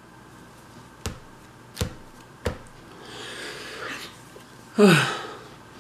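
Three sharp clicks about two-thirds of a second apart, then a soft rustle. Near the end comes the loudest sound: a short vocal sound falling steeply in pitch, from an over-full man with a hand over his mouth.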